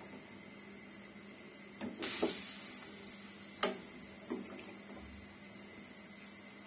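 Wooden spoon stirring rice in a steel pot of hot water, with a few faint knocks of the spoon against the pot over a steady low hum. About two seconds in, a hiss rises and then slowly fades.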